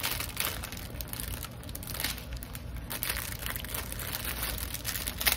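Plastic film on a rolled diamond-painting canvas crinkling as it is handled, in quick irregular crackles over a low steady hum.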